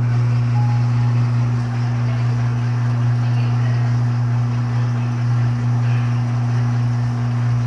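Electrolux LTD13 13 kg washing machine running in its second rinse on the heavy-duty program: a steady low hum that holds an even level without breaks.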